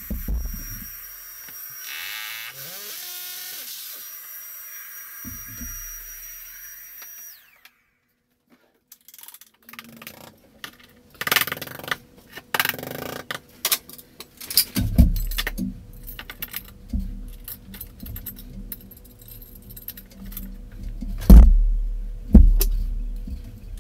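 A handheld vacuum runs with a steady hiss and a thin whine, and a drill spins briefly, before the vacuum cuts off about seven seconds in. After a short silence comes a run of sharp hammer taps and metallic clinks as fixings are knocked into the drilled wall holes and a metal hanging rail is fitted. Two loud knocks come near the end.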